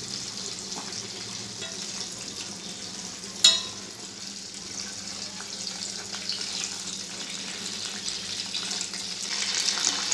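Soya chunks deep-frying in hot oil in a steel pot, a steady sizzle. A single sharp metal clink of the steel slotted spoon against the pot comes about three and a half seconds in.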